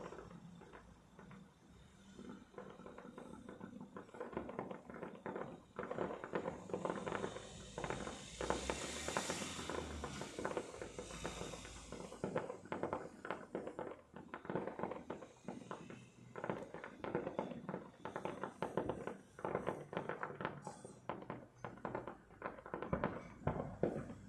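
Faint fireworks crackling: a dense, rapid, irregular run of small pops that starts about two seconds in and keeps going, with a hiss around the middle.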